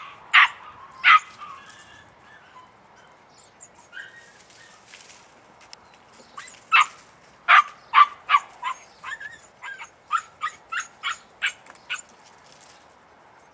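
Podenco puppy yipping in short, high barks: a few at the start, then a quick run of yips from about six seconds in until near the end. These are the puppy's hunting barks while she searches after scent.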